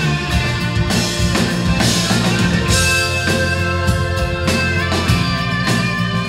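Live rock band playing: electric guitars, bass guitar and a drum kit.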